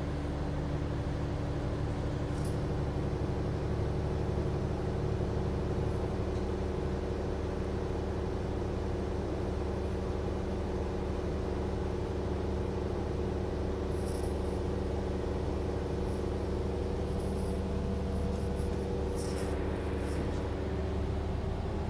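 Steady hum and low rumble inside a SEPTA rail car, with several even hum tones from its running equipment, and a few faint high ticks late on.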